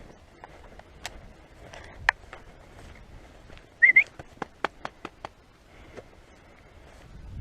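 A short whistle, rising slightly, about four seconds in, followed by a quick run of sharp clicks or snaps over about a second; a few single clicks come earlier.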